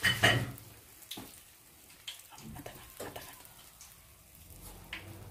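Hot oil crackling faintly in a frying pan, with scattered pops and ticks, and a louder short clatter right at the start.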